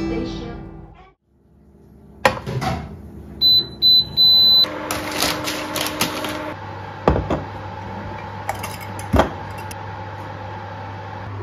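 Induction cooktop beeping three times as it is switched on, the last beep longer, then its cooling fan running with a steady low hum. A few sharp knocks of kitchenware set down on the counter.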